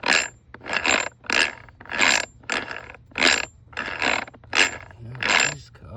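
Steel gears of a Peerless 700 transaxle clacking as the gear train is worked by hand, with about ten short metallic clacks at an uneven rate of roughly two a second. The gears mesh with gaps and fit loosely, which the owner suspects comes from a bent countershaft.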